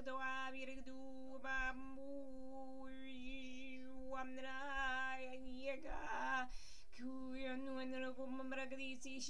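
A voice toning one long held note, steady in pitch while the vowel sound shifts. It breaks off briefly about six seconds in for a short breath, then takes up the same note again.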